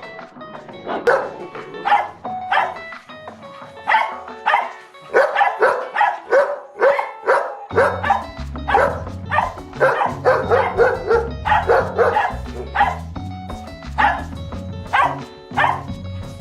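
A dog barking over and over, about two barks a second, in the loud, firm, steady manner of an alert bark warning of a stranger. Background music plays under it, with a low bass line coming in about halfway through.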